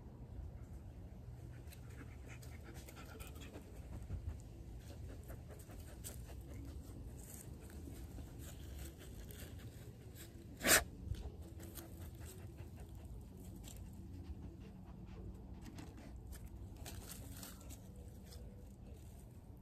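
Dog panting and sniffing right at the microphone, with fur brushing against it and a sharp knock a little past halfway as the dog bumps into it.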